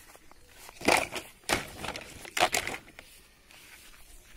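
Plastic toy vehicles handled and rattled against a cardboard box full of toys: three crackling, rustling bursts, about a second apart.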